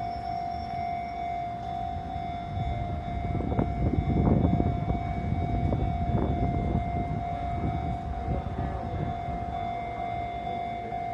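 Level-crossing warning alarm sounding on one steady tone while a Sotetsu train passes over the crossing; the train's running and wheel clatter swell up loudest from about three to seven seconds in, then fade.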